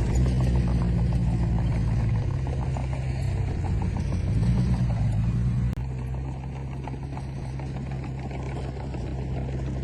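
Diesel engine of heavy earthmoving machinery running under load, a steady low drone that swells briefly around the middle, then drops suddenly to a quieter, steady run a little over halfway through.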